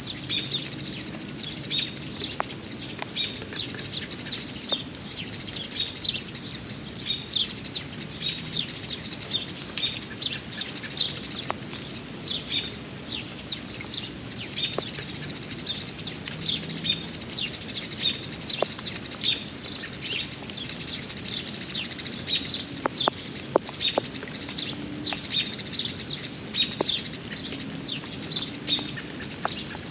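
Songbirds chirping busily, many short quick chirps overlapping, over the steady hiss of rain, with a few sharp drip-like ticks.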